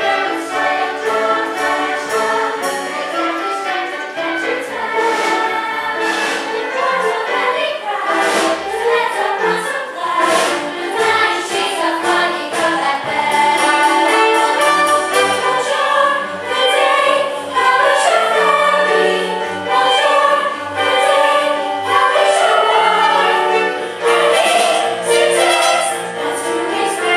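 A school cast's chorus singing a stage-musical number over instrumental backing, many voices together.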